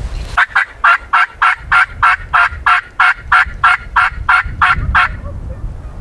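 Gould's wild turkey yelping: a long, evenly paced run of about sixteen raspy yelps, three to four a second, stopping about five seconds in.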